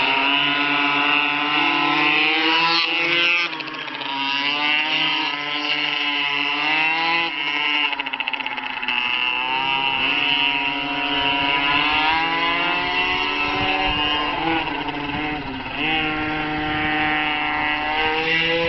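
Blata B1 pocket bike's small two-stroke engine revving high while ridden, its pitch rising and falling as the throttle is opened and closed, with brief dips about three and a half, eight and a half and sixteen seconds in.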